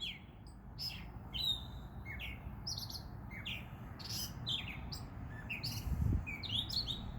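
Unidentified birds calling from a bush at night: a busy run of short, sharp chirps and tweets in varied tones, many of them sliding down in pitch, several a second, over a steady low rumble.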